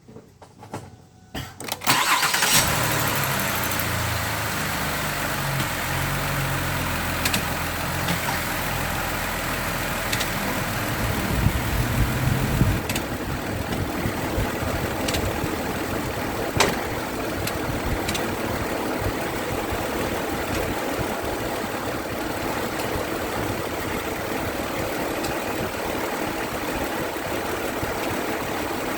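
2008 Ford Fusion engine started about two seconds in, then running at idle. It has a heavier low drone for the first ten seconds or so, then settles to a steadier idle with a few sharp knocks; the owner puts the car's noise down to bad motor mounts.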